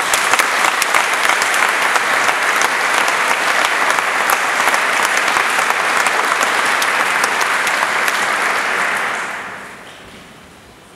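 Audience applauding, then dying away about nine to ten seconds in.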